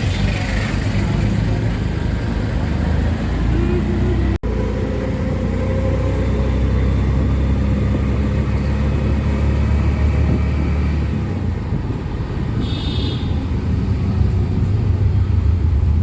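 Steady engine rumble and road noise from an auto-rickshaw ride through traffic, with a brief high-pitched tone, such as a horn, near the end.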